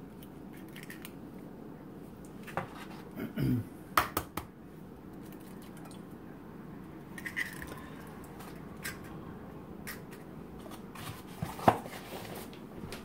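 Eggs being cracked into a stainless steel mixing bowl: a few sharp taps and cracks of eggshell against the metal, scattered through, with the loudest crack near the end.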